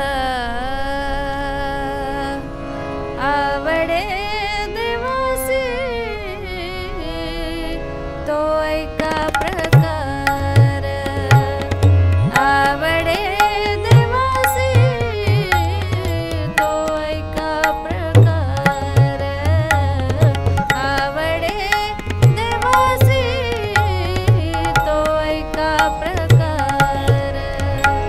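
A woman singing a Marathi devotional abhang to harmonium accompaniment. The tabla comes in about ten seconds in, its deep bass-drum strokes keeping the beat under the voice.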